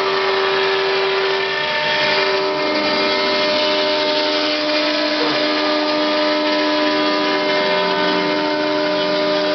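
4-axis CNC router spindle running steadily, its long thin bit carving a white foam block: a continuous hum of several held tones over an even cutting hiss.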